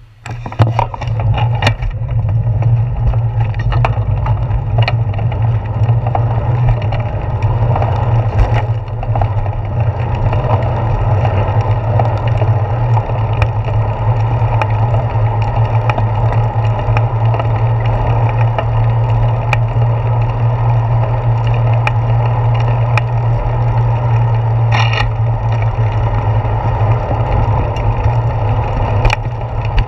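Wind buffeting and road rumble on a bicycle's handlebar-mounted action camera as the bike pulls away from a stop and rides on, setting in abruptly just after the start. A steady low rumble is dotted with occasional clicks and knocks from bumps in the road.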